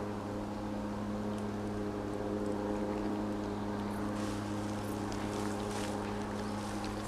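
A steady, even-pitched mechanical drone, like an engine running at constant speed, holding the same pitch and level throughout.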